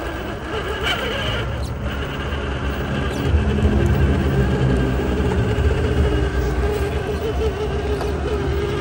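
1/10-scale electric RC rock crawler's motor and gears whining unevenly as it crawls up a rock onto a concrete ledge, over a steady low rumble.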